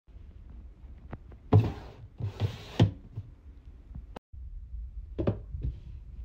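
Cardboard boxes being set down and slid into place on a wood-laminate shelf: several dull thumps with brief scraping, loudest about a second and a half in and near three seconds, then two more knocks near five seconds.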